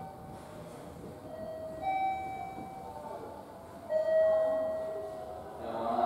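Electronic chime: a few sustained, bell-like notes in turn, the loudest and lowest about four seconds in, ringing out for about a second and a half.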